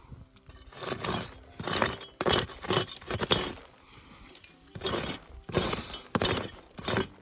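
Pick strikes digging into stony, gravelly ground to uncover a faint metal-detector target: sharp clinking blows about two a second, stopping briefly about halfway through.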